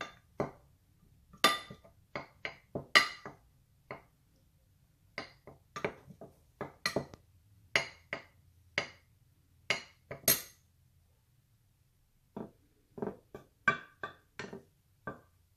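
Metal spoon clinking and tapping against the sides of a glass dish while stirring dry gram flour, in irregular sharp clicks about one or two a second, with a pause of about two seconds after the middle.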